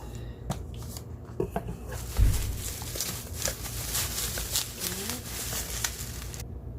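Boxes and packaging being handled: rustling and scattered clicks, with one dull thump about two seconds in.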